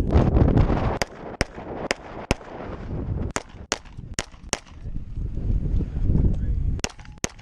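Glock 35 pistol in .40 S&W fired about ten times in quick pairs, each pair of shots about half a second apart, during a timed USPSA stage run. Heavy wind buffets the microphone between the shots.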